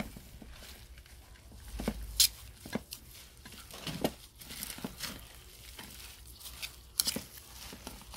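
Metal spoons mixing bibimbap in a plastic bowl: irregular clicks and scrapes of the spoons against the bowl and the soft squish of the rice and vegetables, the sharpest clicks a little after two seconds and at about seven seconds. A plastic seaweed-flake packet crinkles now and then.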